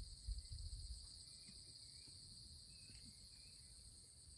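Faint, steady high chirring of insects, pulsing evenly, with a low rumble in the first second.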